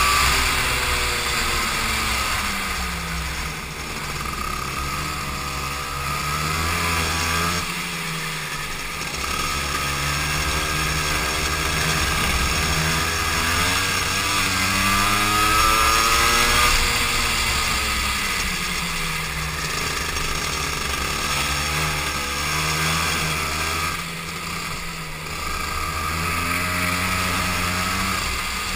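Go-kart engine heard from on board while racing, its revs climbing and dropping again and again, falling for each corner and rising along the straights.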